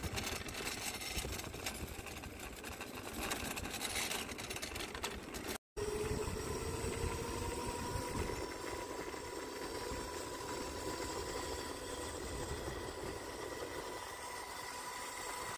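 Hoverboard-powered electric go-kart driving on asphalt. For the first few seconds there is a rough, uneven rumble of tyres close to the wheel. After a cut, the hub motors give a steady electric whine that rises slightly in pitch over the rolling rumble.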